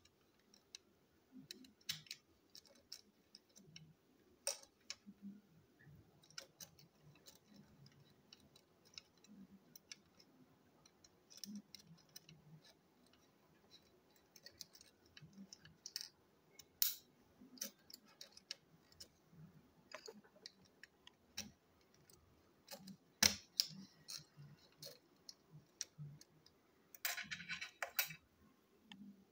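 Faint, irregular clicks and taps of small plastic toy-engine parts being handled and fitted together on a tabletop, with a quick run of clicks near the end.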